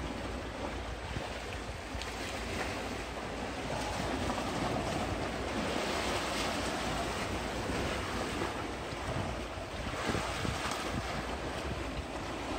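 Sea waves breaking and washing over shoreline rocks in a steady wash, with wind blowing on the microphone.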